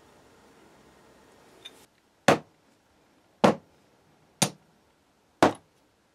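Pieces of metal bar stock set down one after another on a workbench: four sharp, short knocks about a second apart, after a couple of seconds of faint background hum.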